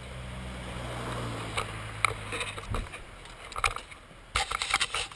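Yamaha WR250F dirt bike's single-cylinder four-stroke engine running at low revs, then cutting off about halfway through. After it come scattered clicks and knocks, bunched together near the end.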